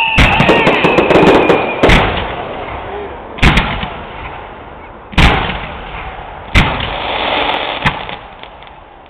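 Fireworks display: a whistle falling in pitch fades out about two seconds in, over the hissing and crackling of ground fountains and bursting stars. Six sharp bangs come about every second and a half, and the noise dies down toward the end.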